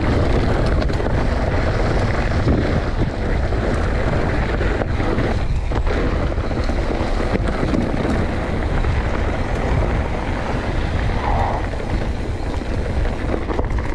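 Wind rushing over the microphone with a steady low rumble and a few faint knocks, from riding fast down a rough trail.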